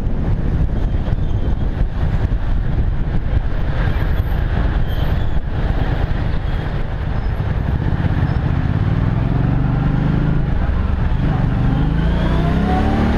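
Kymco Venox 250's V-twin engine running at low speed in slow city traffic, heard from a helmet-mounted camera; from about two-thirds of the way in, its pitch rises as the bike accelerates.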